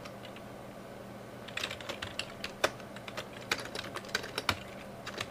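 Typing on a computer keyboard: a single keystroke, then an irregular run of quick keystroke clicks starting about a second and a half in.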